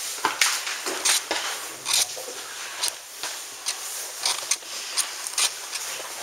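Irregular scuffs and rustles, about one or two a second, as someone moves on a carpeted staircase holding the camera close, over a faint steady hiss.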